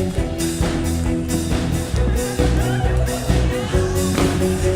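Live band music with a steady beat, guitar, bass and drums: the instrumental intro of a pop song parody before the singing comes in.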